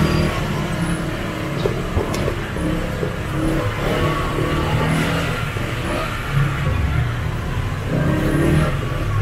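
Motorcycle engine running steadily at low riding speed, its pitch drifting up and down a little.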